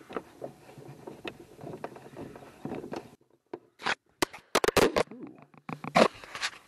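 Small clicks and scrapes of a screwdriver working a screw into a plastic ball track on the underside of a table. About halfway through, a run of loud knocks and clatters as the camera is knocked down and handled.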